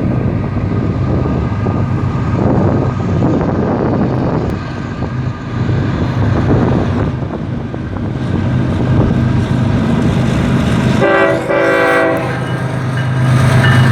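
Freight train passing: the diesel locomotive runs with a steady low hum over the rumble of the cars on the rails. About eleven seconds in there is a short, broken horn-like tone.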